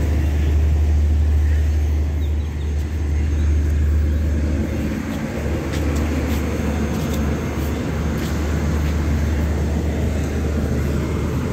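Steady low diesel hum of a standing SRT express passenger train, with a few light clicks around the middle.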